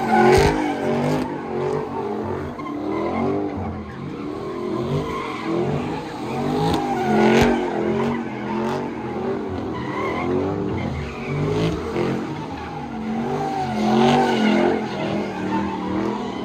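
A car doing donuts: its engine revs up and down over and over, about once a second, while the spinning rear tyres squeal.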